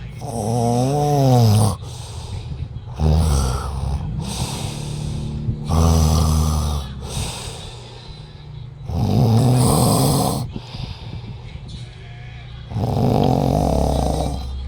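Loud snoring: five snores about three seconds apart, with breathy hiss in between. The first snore carries a clear pitch that rises and falls.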